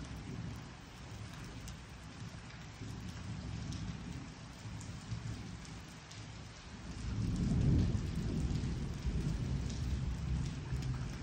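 Steady rain falling with a low roll of thunder. The thunder swells about seven seconds in, is loudest about a second later, then rumbles on under the rain.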